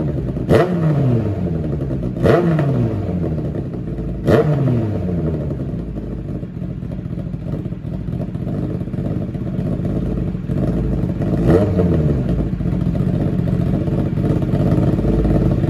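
Kawasaki Ninja ZX-9R inline-four engine breathing through an SC Project silencer, idling and revved by hand at a standstill. Three quick throttle blips come in the first few seconds and one more about eleven seconds in, each dropping straight back to idle, with steady idling between.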